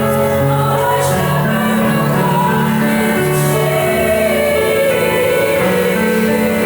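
Holiday music: a choir singing over instrumental accompaniment, with notes held and changing step by step.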